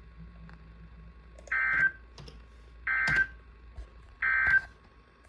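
NOAA Weather Radio SAME end-of-message signal: three short bursts of digital data tones, about 1.3 seconds apart, closing the special marine warning. Faint radio hiss lies under them.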